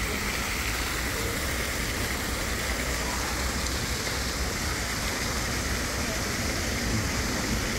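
Fountain water splashing and falling into its basin, a steady, even rush.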